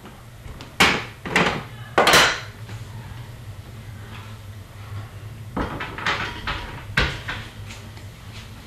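Trading-card boxes and cards handled on a table: a few short knocks and scraping rustles, in two clusters about a second in and again around the middle, over a steady low hum.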